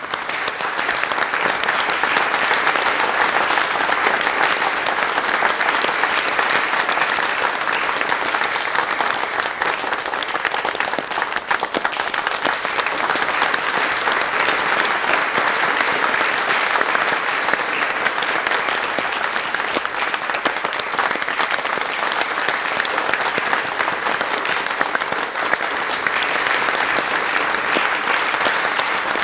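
Audience applause: many people clapping together in a dense, steady wash.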